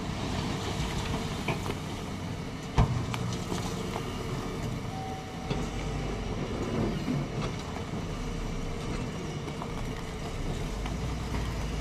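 Diesel engines of a tipper truck and a JCB 3DX backhoe loader running steadily while soil and rocks slide out of the raised dump body, with a few knocks from falling stones, the sharpest about three seconds in.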